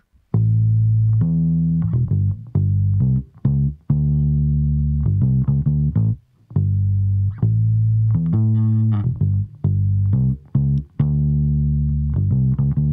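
Electric bass guitar line playing back through the Cenozoix compressor: held low notes that change pitch every second or so, with a few brief gaps between phrases.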